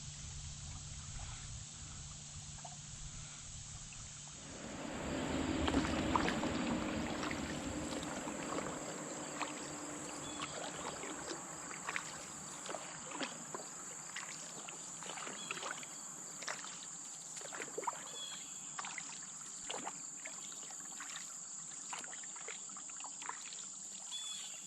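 Paddling a small boat on a slow river: water swishing and dripping, with small clicks and knocks. There is a louder wash of water about five seconds in, and a steady high insect drone underneath.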